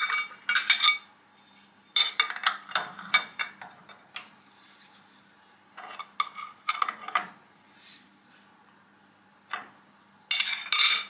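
Steel parts clinking and clattering against a steel milling-machine vise as a machined collar and a collet block are handled and set down. The clinks come in several irregular bursts, loudest near the end.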